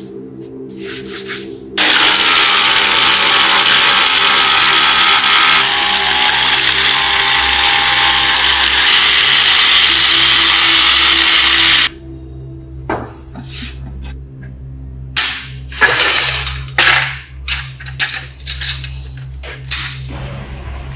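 Angle grinder with an abrasive disc running against a metal back panel, stripping its black paint, starting abruptly about two seconds in and cutting off suddenly about ten seconds later. Afterwards there are short knocks and scrapes as the panel is handled, with background music.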